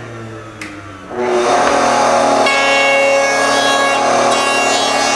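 Router in a router table switching on about a second in and running loud and steady, a steady mechanical whine with several pitches held together.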